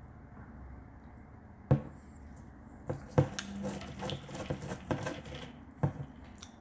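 A few sharp knocks with a run of light clicks and clatters between them, as of small objects being handled on a hard surface close to the microphone: one knock a little under two seconds in, two more about a second later, a busy patch of small clicks, and a last knock near the end.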